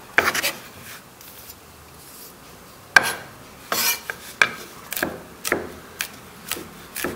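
Garlic being pounded and ground with a pestle in a mortar: a few scraping strokes, a short pause, then regular strikes about twice a second, mixed with rasping grinding.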